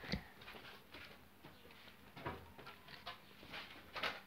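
Faint, scattered wet clicks and soft smacks of a child chewing bubble gum, a few seconds apart.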